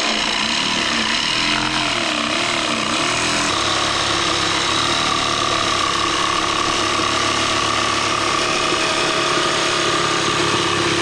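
Electric jigsaw running continuously as it cuts through small pieces of wood. Its motor pitch wavers under load for the first few seconds, then holds steady.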